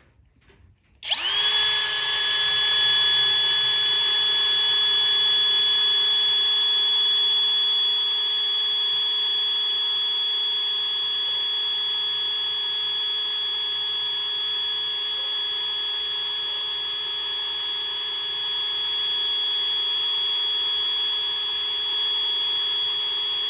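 Electric drill starting about a second in and running steadily at one constant pitch, a small bit boring into a bent, seized steel bolt in a car subframe.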